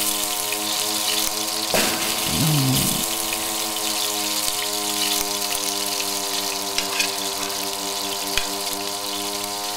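Steady hiss of running water under a sustained droning chord of music, with a brief wavering hum about two seconds in.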